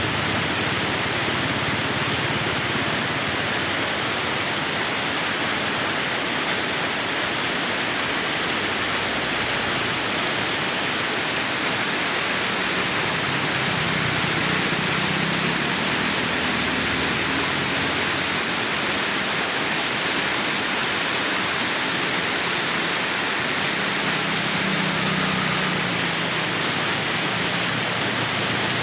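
River water rushing and splashing in a steady, unbroken wash of noise.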